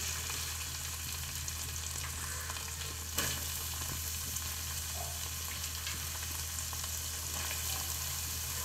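Chopped onion sizzling in melted butter in a steel pan, a steady frying hiss with a single knock about three seconds in, over a low steady hum.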